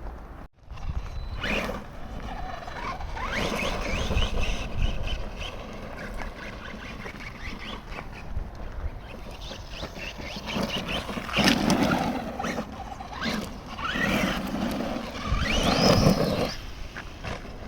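Team Associated Rival MT10 RC monster truck running: its electric motor whines, rising in pitch as it revs, over a rough rushing noise, in several louder surges.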